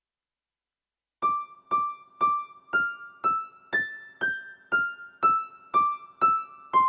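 GEM SK880 keyboard workstation playing a simple melody of single struck notes, about two a second, starting about a second in after a silent gap. The recording is clean, with no ground-loop buzz or mains hum under the notes.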